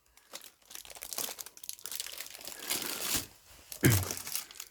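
Packaging being handled, crinkling and rustling in irregular bursts with scattered small clicks, and one louder knock near the end.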